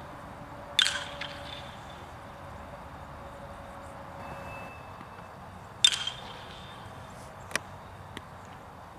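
Two crisp cracks of a baseball bat hitting pitched balls, about five seconds apart, each with a brief ring. A fainter click follows about a second and a half after the second hit.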